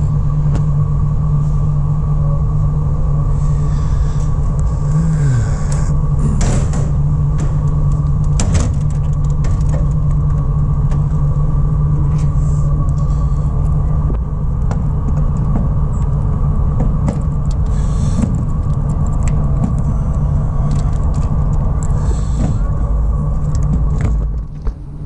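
A van engine idling with a steady low hum, with scattered clicks and knocks from its doors and latches being handled. The hum falls away near the end.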